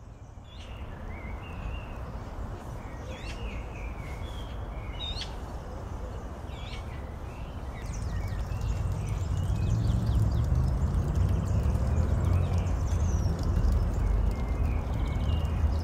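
Small birds chirping and calling in the trees, many short notes and quick gliding calls, over a steady rushing background that grows louder and deeper about halfway through.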